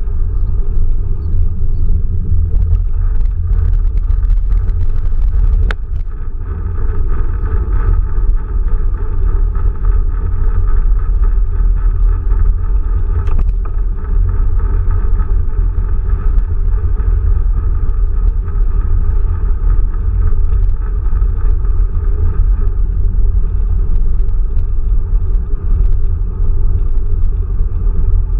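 Quest velomobile rolling along an asphalt street: a loud, steady low rumble of tyres and drivetrain carried through the shell. A single sharp click about six seconds in.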